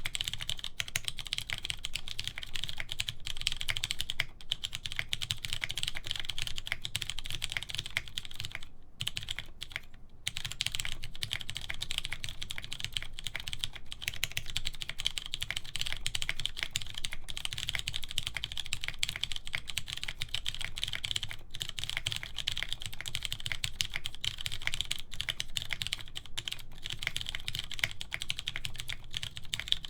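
Continuous typing on a custom mechanical keyboard: lubed Cherry MX Clear tactile switches with switch films, in a full aluminium plate, under thick PBT DCS keycaps. A rapid, steady stream of key clacks, with a brief break about nine seconds in.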